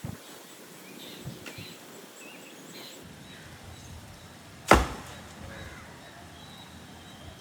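A single loud, sharp chop-like knock about two-thirds of the way in, ringing out for a moment, over a low background with a few faint clicks.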